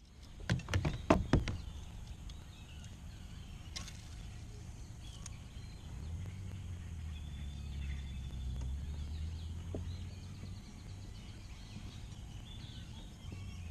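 A quick run of about five sharp knocks in the first second and a half, then a low steady rumble.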